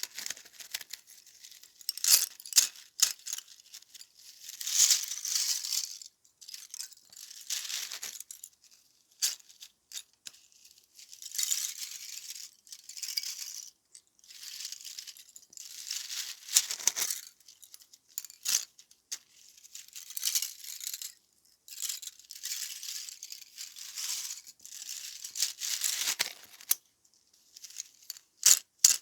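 Dry barley straw crackling and crinkling as it is crushed, in irregular bursts of a second or two with short pauses and a few sharp snaps.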